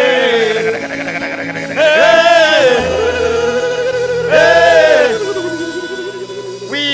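Worship music: a voice singing long held, wavering notes over sustained keyboard chords.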